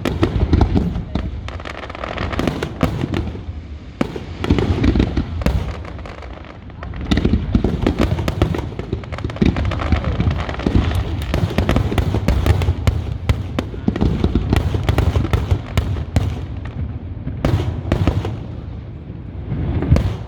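Fireworks display: a dense, continuous barrage of shells bursting, many bangs a second with deep booms and crackle, easing briefly about six seconds in and again near the end.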